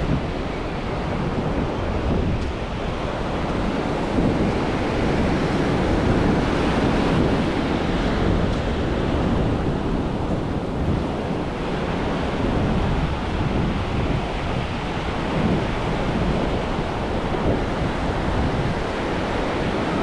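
Small waves breaking and washing up a sandy beach in a steady hiss and rumble, with wind buffeting the microphone.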